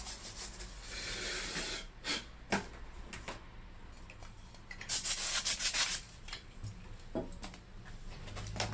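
Rubbing strokes across a laptop's casing as it is wiped clean, with a few light clicks and taps between the strokes.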